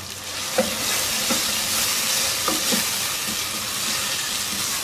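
Mixed vegetables and spices frying in hot oil in a pot, sizzling as they are stirred and turned over with a spatula. The sizzle swells in the first second, and the spatula knocks and scrapes against the pot a few times.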